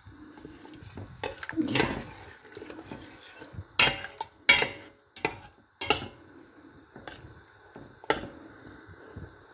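Metal spoon stirring chicken pieces in a stainless steel pot, clinking and scraping irregularly, with a few sharper knocks against the pot's side.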